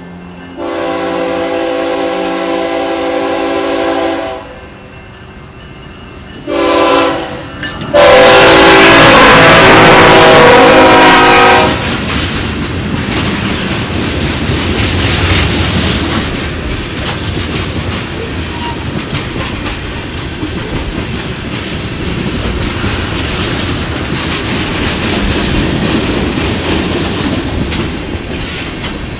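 A freight locomotive's air horn, on a CPKC GE ES44AC, sounds a long blast, a short one, then a long, very loud blast as it reaches the road crossing: the end of the grade-crossing signal. From about twelve seconds in, the freight cars roll past with steady wheel and rail clatter.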